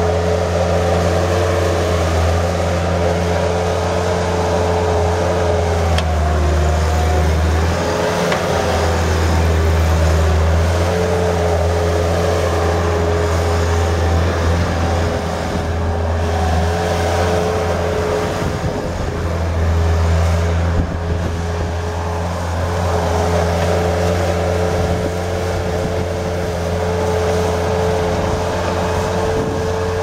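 The Kubota V2203 2.2-litre diesel engine of a 1999 Bobcat 763 skid steer running steadily as the machine drives and turns, with a steady whine over the engine hum and slight dips in pitch now and then.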